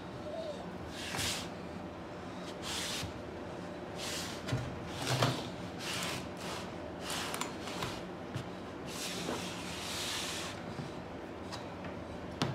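Homemade gasket cutter, a solid metal block carrying a blade, worked by hand over a rubber gasket sheet: a run of irregular scraping strokes as the blade cuts through the rubber, the longest near the end. A couple of dull knocks of the block come about five seconds in.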